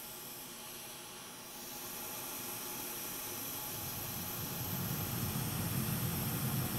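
Hot-air rework station blowing a steady hiss of hot air onto a circuit board to desolder a Wi-Fi module, getting somewhat louder about a second and a half in and again near the end.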